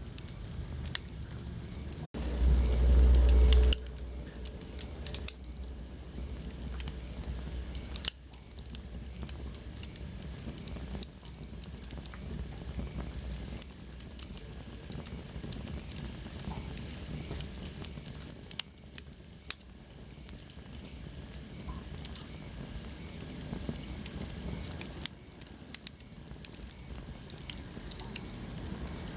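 Wood fire burning in a fireplace, crackling with frequent sharp pops over a steady soft hiss. About two seconds in the sound briefly drops out and a loud low rumble follows for about a second and a half, and a faint high whistle glides slowly down around the middle.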